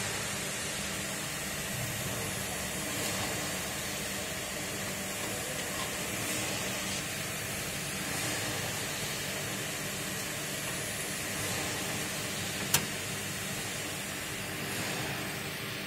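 Steady airy hiss of a powered-on desktop computer's fans running, with one sharp click about thirteen seconds in as the expansion card is handled in its slot.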